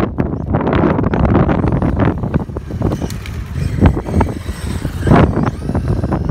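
Wind buffeting the microphone over a Maverick Strada RX radio-controlled car driving on tarmac, its electric motor giving a faint high whine that rises in pitch as it speeds up near the end.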